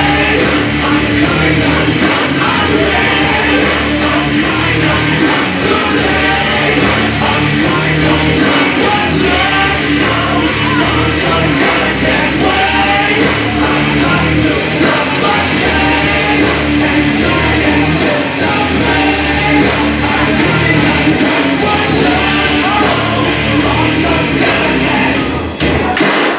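Loud recorded song with singing, played over the sound system.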